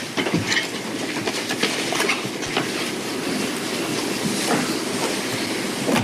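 Courtroom room noise: a steady noisy hum with frequent small irregular clicks and rustles picked up by the courtroom microphones while the verdict form is handed over.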